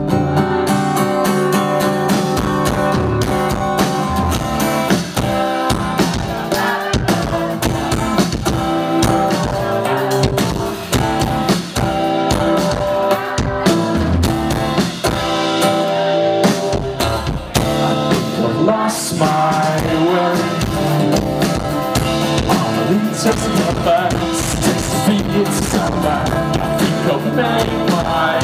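Rock band playing loud live music: drums and guitar driving a steady beat, with singing at times.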